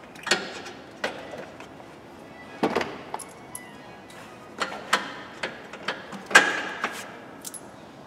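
Metal hand tools and loose parts clinking and knocking in a car's engine bay as they are handled and set down: about ten sharp, separate clanks, the loudest about six and a half seconds in. Faint background music underneath.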